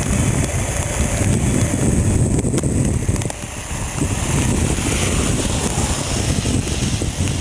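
Storm wind buffeting the microphone over the low rumble and hiss of a four-engine Airbus A380 taxiing on a wet runway. The wind eases briefly about three seconds in.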